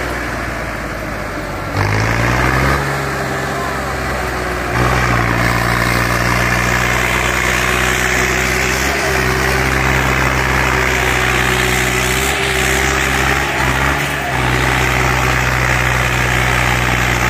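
Swaraj 744 tractor's diesel engine working under load hitched to two harrows. The revs rise about two seconds in, then hold steady and louder from about five seconds on, with a few brief dips.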